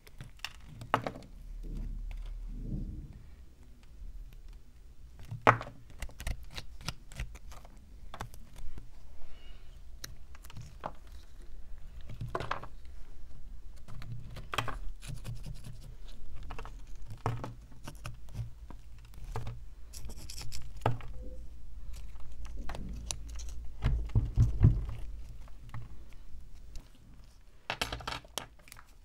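A small metal tool scraping and picking at the hardened crust of dirt and rust on an antique meat grinder. It makes irregular scratches and clicks, with a few louder knocks as clumps break away.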